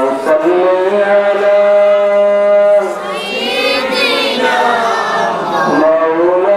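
A man's voice chanting in a slow, sung style, holding long notes and sliding between them, with a higher, wavering phrase about halfway through.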